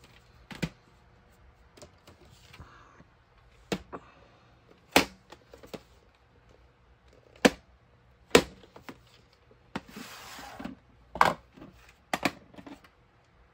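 VHS cassettes in cardboard sleeves being handled: a string of sharp plastic-and-cardboard clicks and knocks as tapes are picked up and set down on a wooden floor, and a short papery scrape about three quarters of the way through as a cassette slides out of its sleeve.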